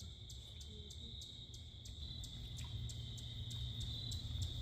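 Insects calling: a steady high trill with a sharp chirp repeating about four times a second, over a low rumble.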